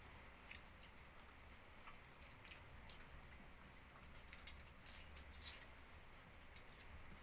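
Near silence with faint scattered clicks and small rustles, and one sharper click about five and a half seconds in.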